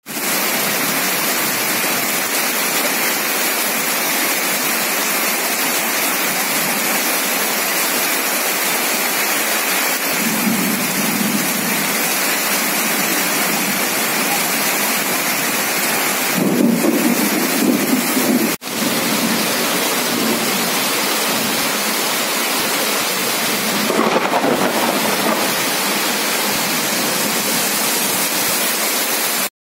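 Heavy rain pouring down in a dense, steady hiss, with water streaming off a roof edge. The sound cuts out for an instant about two-thirds of the way through, and again briefly at the very end.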